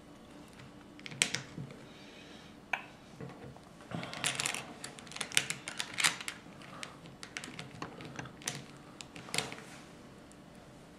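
Plastic Lego tiles clicking as they are handled and pressed onto a baseplate: a scattered run of small sharp clicks, thickest about four to six seconds in.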